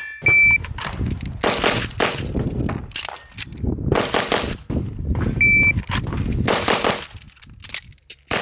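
Gunshots fired in quick strings, some overlapping, each followed by a short echo. A short high electronic beep sounds just after the start and again about five and a half seconds in, typical of a shot timer.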